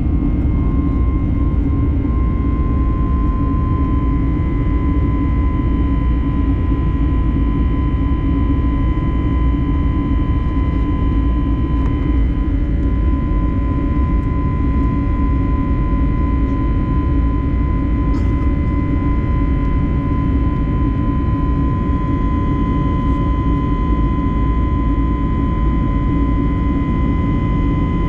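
Airbus A321neo jet engines and airflow heard from inside the passenger cabin: a steady deep rumble with a thin, even whine above it.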